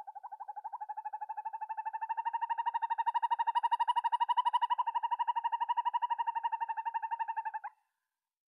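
An owl's long trill: a rapid run of notes on one steady pitch, growing louder through the middle and stopping abruptly near the end.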